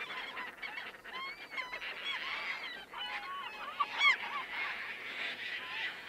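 Herring gull colony calling: many short, overlapping arched calls, with one louder call about four seconds in.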